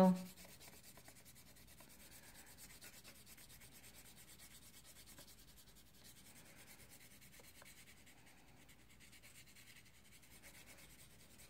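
Green wax crayon rubbed lightly back and forth across paper, a faint steady rubbing of light colouring strokes with the crayon held on its side.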